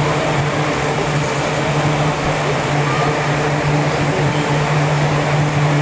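Steady low hum and air noise from the blowers and ventilation that keep an air-supported sports dome inflated, unchanging throughout.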